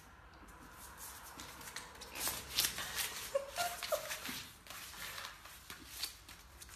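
A dachshund playing with a plush toy: scuffling, light knocks and clicks of paws and the toy being tossed about, busiest in the middle, with a brief squeaky sound about three and a half seconds in.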